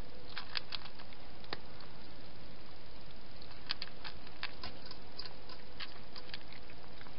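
A domestic cat eating at a plastic dish: two runs of small quick clicks, the first about half a second to a second and a half in, the second from about three and a half to six and a half seconds, over a steady hiss.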